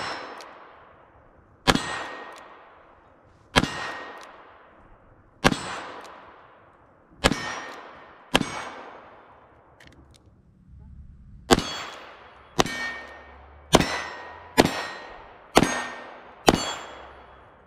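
Kimber K6s revolver firing two cylinders of six shots, each shot with a ringing tail that fades out. The first six come about two seconds apart; after a short pause the next six come faster, about one a second.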